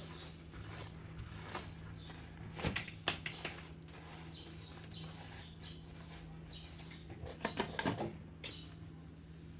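Small sharp clicks and taps from handling tools and phone parts during an iPhone 7 screen repair, in two brief clusters, over a steady low electrical hum. Short, faint high chirps repeat throughout.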